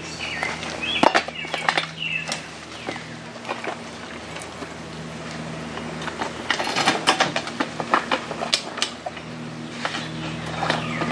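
Lone Wolf hand-climber tree stand being set and climbed: scattered metallic clanks, knocks and rattles of the stand's sections against the trunk, bunched about a second in and again from about six and a half seconds.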